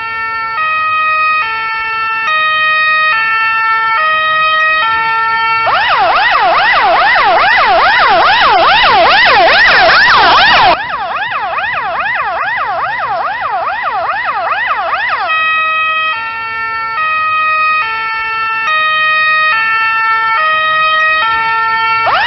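Finnish ambulance siren. It sounds a two-tone high-low alternation, switching pitch about every 0.7 seconds. About six seconds in it changes to a fast rising-and-falling yelp for around ten seconds, then returns to the two-tone pattern.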